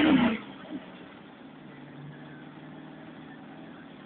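Twin-turbo 351 Windsor V8 in a 1990 Ford Mustang GT: a throttle blip falls away in the first half second, then the engine idles steadily.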